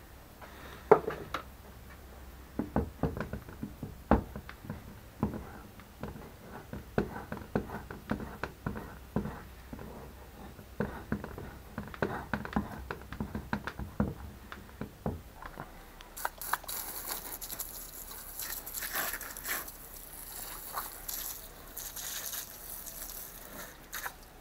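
A knife scraping the dirty underside of a rendered beeswax cake, a quick series of rough scrapes and knocks as the slumgum layer is cut away. About 16 seconds in this gives way to a steady high hiss with spattering, water from a hose spray nozzle rinsing the wax cake.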